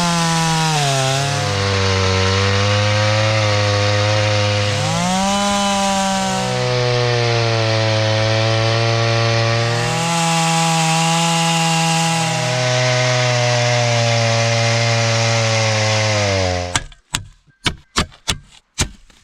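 Two-stroke chainsaw running at high revs and cutting wood, its pitch dropping as it bogs down in the cut and jumping back up when it frees, several times over. The saw stops suddenly near the end, followed by a quick series of about seven sharp knocks.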